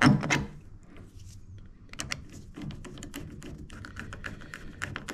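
A handling knock at the start, then a run of quick, irregular clicks as a screwdriver turns down the screw that clamps a Railblaza rail mount onto a boat's stainless rail, the screw drawing into the captive nut underneath.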